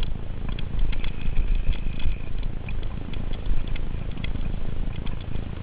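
Riding noise picked up by a camera mounted on a mountain bike: tyres rumbling over a dirt singletrack, wind buffeting the microphone, and frequent rattling clicks from the bike and mount over the bumps.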